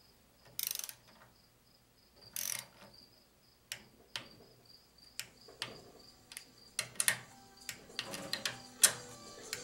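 Torque wrench with socket and extension ratcheting and clicking on the bolts of a TH400 transmission's governor cover as they are torqued to 70 inch-pounds. Two short rasps early on, then a run of sharp metal clicks and taps that comes faster toward the end.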